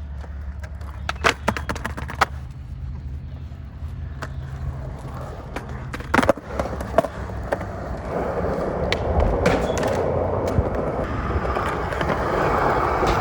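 Skateboard rolling on a concrete skatepark, with sharp wooden clacks of the board popping and landing several times. The rolling of the wheels gets louder from about two-thirds of the way in.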